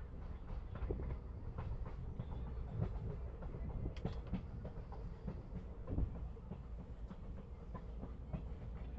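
Passenger train running along the track: a steady low rumble with scattered, irregular clicks and clacks from the wheels on the rails.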